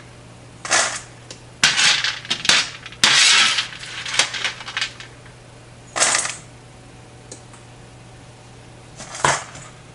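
Metal spoon scraping across a metal baking sheet, scooping hard, freshly roasted chickpeas that clatter against the pan. It comes as about seven or eight separate scrapes and clinks with short pauses between them.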